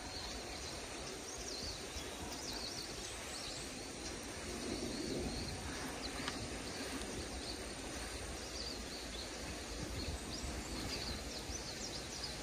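Outdoor background noise with many short, high bird chirps scattered throughout.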